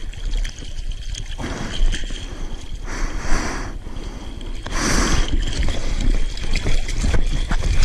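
Seawater sloshing and splashing around a surfer, over a steady low rumble. Two louder rushes of water come about three and five seconds in.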